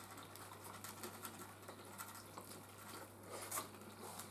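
Faint eating sounds: closed-mouth chewing and metal forks scraping and tapping in polystyrene takeaway boxes, with a slightly louder scrape about three seconds in.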